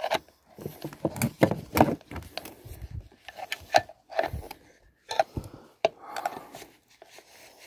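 Metal hand tool clicking and scraping at the nut on a vacuum cleaner motor's fan while it is being loosened, a run of irregular sharp clicks and knocks.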